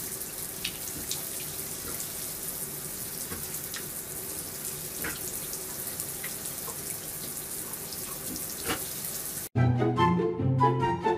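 Shower water running steadily into a bathtub, with a few faint splashes. About 9.5 s in it cuts off suddenly and louder music starts.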